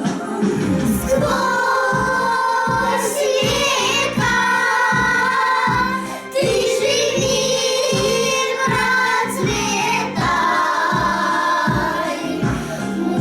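A song sung by children's voices with a woman soloist, over a backing track with a steady beat of about two a second.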